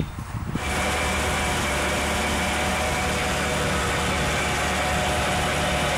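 Willys CJ3A's four-cylinder flathead engine running steadily while turning the Jack & Heintz G32 DC aircraft generator through its PTO drive. The running sound comes in suddenly about half a second in, after a few faint knocks.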